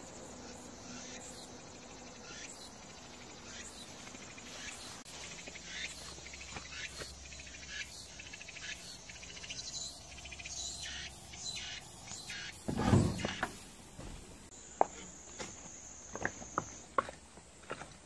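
Insects chirping in short high calls over a faint steady hum. About thirteen seconds in, a loud rattling scrape as a sheet-metal gate is pushed open, followed by a few sharp footstep clicks.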